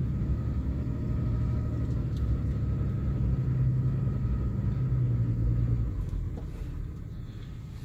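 Car driving slowly, heard from inside the cabin: a steady low engine-and-tyre rumble. The engine drone drops away about six seconds in.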